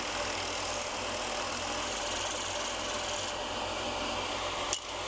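Benchtop drill press running with a large bit boring a hole through a plywood plate: a steady motor hum under the rasp of the cut. There is a brief break with a click near the end, then it continues.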